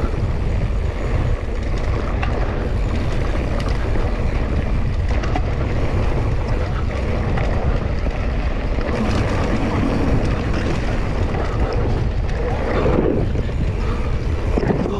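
Steady wind rush buffeting a rider-mounted action camera's microphone as a mountain bike rolls down a dirt trail, with rattle from the bike and tyres underneath.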